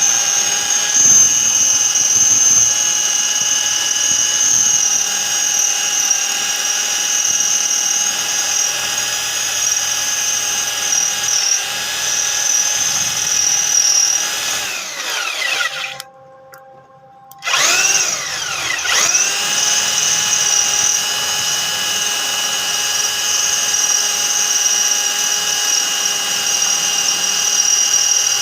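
Electric drill machine running with a steady high whine while drilling stainless steel angle. About fifteen seconds in it winds down and goes nearly quiet for a second or so, then spins back up to speed.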